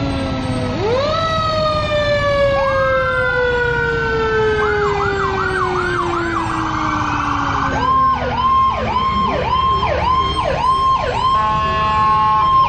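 Fire engine sirens sounding together: one winds up about a second in and then slowly falls in pitch, and from about two-thirds of the way through a rapid yelp repeats about twice a second, over the low rumble of the trucks' engines.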